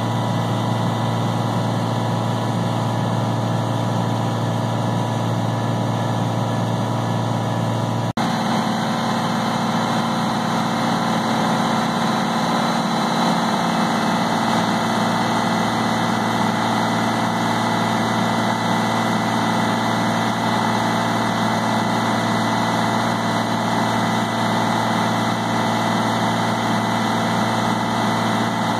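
Tractor engine and New Holland 351 grinder-mixer running steadily, grinding feed. About eight seconds in the sound changes abruptly to the same running heard from inside the tractor's cab.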